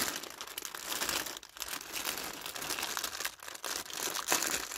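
Plastic poly mailer bag crinkling and rustling as it is handled and pulled open by hand, in uneven bursts with short pauses.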